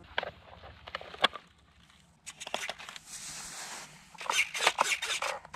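Hands rustling through clover and handling a 3D-printed flying wing: irregular clicks and rustles, then a quick run of scrapes in the last second or so.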